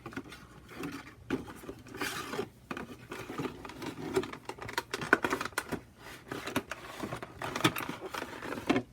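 Cardboard box and plastic packaging of a Nendoroid figure being handled: irregular rustling, scraping and clicking, with sharper clicks about five seconds in and near the end.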